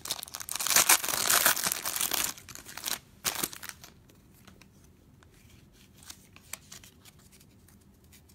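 Foil wrapper of a pack of football trading cards crinkling and tearing as the pack is opened, for about two seconds, followed by a sharp click and then a few faint ticks as the cards are handled.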